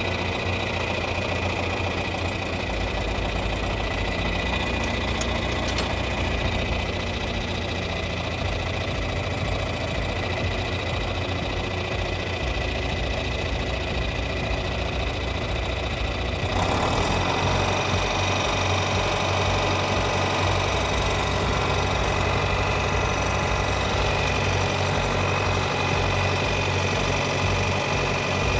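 The four-cylinder diesel engine of a John Deere 3010 tractor running steadily just after a cold, easy start; a little past halfway it turns louder and stays so.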